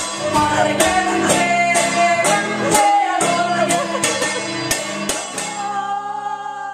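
Acoustic guitar strummed in a steady rhythm while a woman sings. The strumming stops about five and a half seconds in, and the last chord and sung note ring on and fade away.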